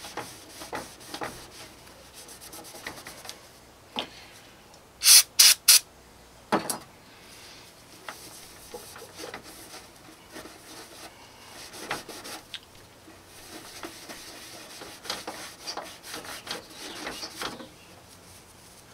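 A cloth rag rubbing and wiping over a plastic headlight lens in quick, repeated strokes, buffing off carburetor cleaner that softens the surface so it polishes smooth. About five seconds in there are three or four short, loud hissing bursts.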